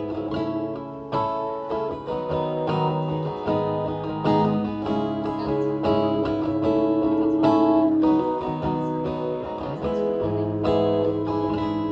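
Acoustic guitar strumming chords with no singing: the instrumental ending of the song after its last chorus.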